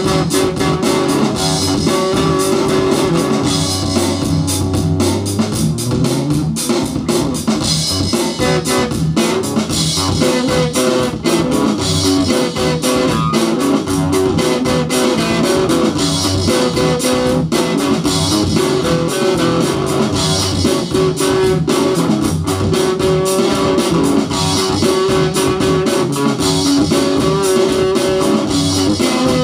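Electric guitar played continuously over a looping rock beat with a bass line, in a pattern that repeats about every two seconds.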